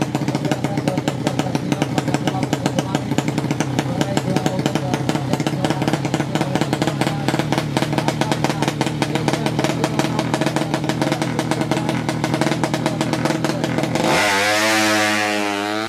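A 200cc sleep-engine drag motorcycle's engine running at a fast, rough, pulsing idle, then about 14 s in revving hard, rising steeply in pitch and louder, until it cuts off abruptly.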